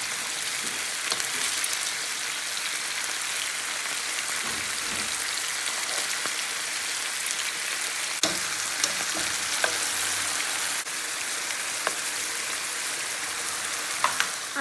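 Strips of beef frying in hot oil in a skillet: a steady sizzle with scattered sharp pops and clicks.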